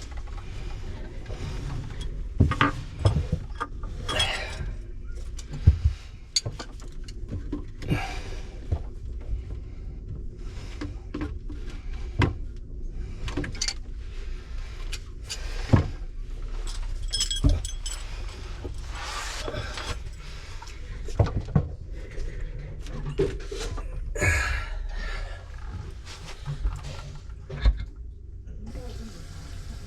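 Irregular metallic clinks, knocks and rattles of tools and small metal drain parts being handled, with scraping between them.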